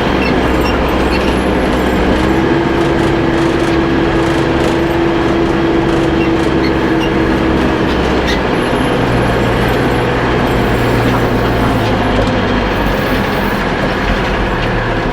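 Backhoe tractor engine running steadily while the loader works a pile of dirt, with a held tone over it from about two to eight seconds in and a lower one a little later.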